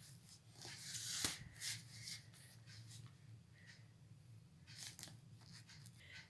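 Pencil scratching on drawing paper and the sheet rustling under the hand, in short irregular strokes, with one sharp tap about a second in. A low steady hum runs underneath.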